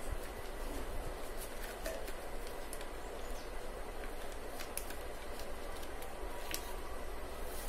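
Sheet of paper being folded and creased by hand, a few faint crackles over a steady low rumble and hiss of background noise.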